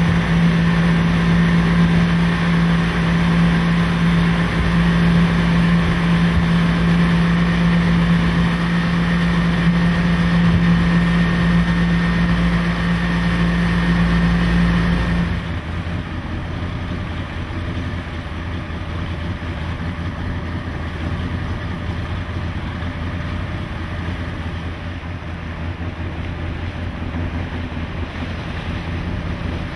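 Inboard motorboat engine running steadily at speed, with water wash from a planing hull and wind noise on the microphone. About halfway through, the sound drops abruptly to a quieter, more distant engine note and wash.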